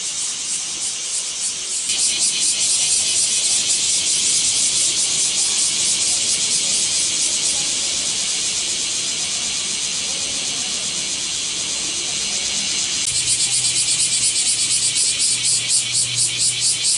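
Cicadas calling in a dense chorus, a loud high-pitched buzz with a fast throbbing pulse. The chorus swells about two seconds in, and near the end it changes to a stronger, more evenly pulsing call.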